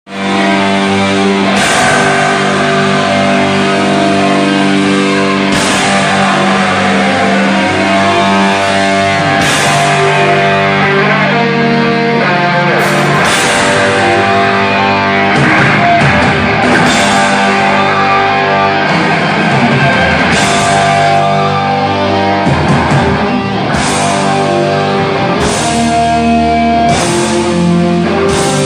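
Rock band playing live: electric guitars over a drum kit, loud and steady, with a crash every few seconds.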